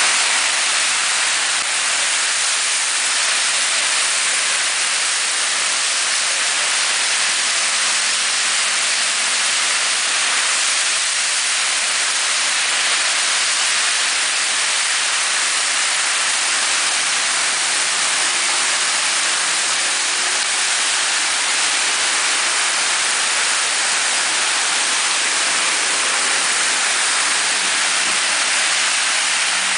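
Heavy rain falling on a flooded street, an even, loud hiss.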